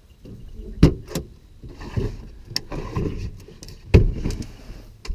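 Handling noise at the back of a car while a hawk travel box is closed up: rustling with several sharp knocks and clicks, the two loudest about a second in and about four seconds in.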